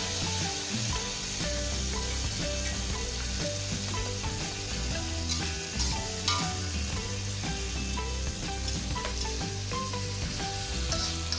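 Food sizzling in hot oil in a frying pan, a steady hiss with a few sharp clicks of a utensil against the pan a little past the middle. Background music with a stepping melody and bass runs underneath.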